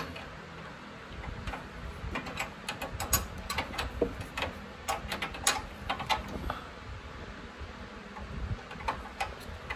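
Open-end wrench clicking and tapping on the metal fitting of a brake flex line as it is fitted and turned to tighten the line. Irregular small metal clicks, in short clusters.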